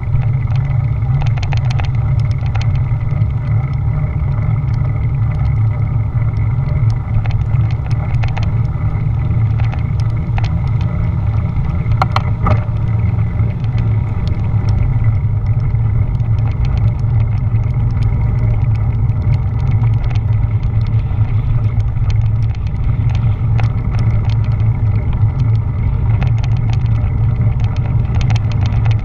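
Wind buffeting the microphone of a bicycle-mounted GoPro action camera while cycling along a road, giving a loud, steady low rumble with tyre and road noise. Small rattles and clicks come from the bike and mount throughout, with a sharper click about twelve seconds in.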